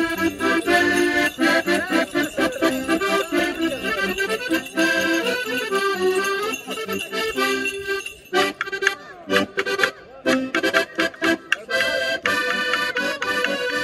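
Piano accordion playing a lively folk tune. About eight seconds in, a run of quick, sharp clicking strokes joins the music.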